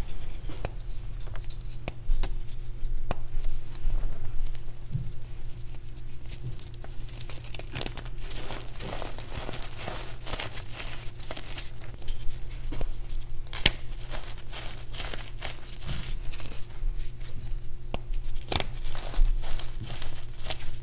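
Hands crushing and crumbling lumps of reformed gym chalk between the fingers: a dense, irregular run of crunches and crackles as the pressed chalk breaks into powder. A steady low hum runs underneath.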